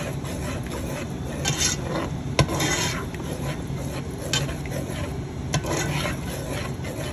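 A spoon stirring thick ricotta sauce in a nonstick pot, scraping and rubbing over the bottom and sides, with a few sharp taps of the spoon against the pot.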